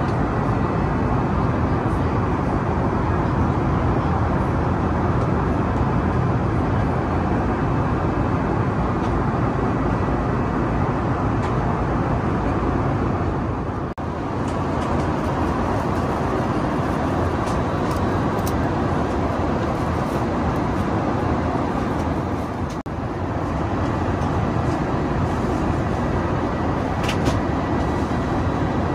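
Steady rush of engine and airflow noise inside an Airbus A380 passenger cabin. It dips briefly twice.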